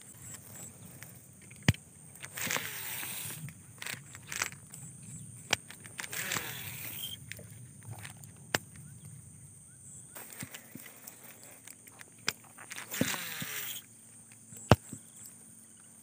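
Baitcasting reel in use: three whirring passages that fall in pitch, with several sharp clicks of the reel between them, over a steady high insect drone.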